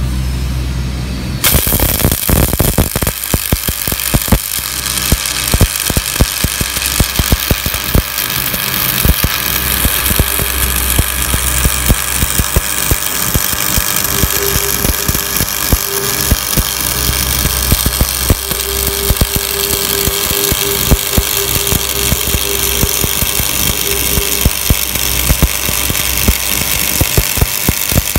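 Stick-welding arc struck about a second and a half in, then a continuous crackling sizzle with frequent sharp pops as the electrode lays a bead on sheet metal. A steady low machine hum runs underneath.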